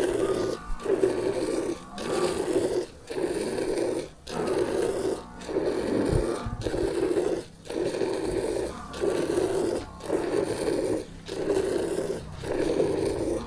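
Hand milking of a buffalo: milk streams squirting into a pail in a steady rhythm of pulses, about one every second, with short breaks between them.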